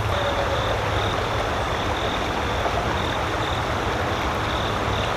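Steady rushing of a nearby creek, with a faint high chirp repeating about twice a second over it.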